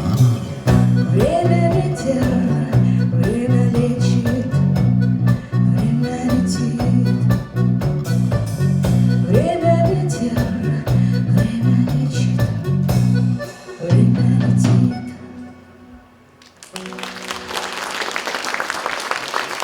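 A live band of drums, bass guitar, guitar and bayan plays the last bars of a song with a steady beat, stopping about fifteen seconds in. A second or two later the audience starts applauding.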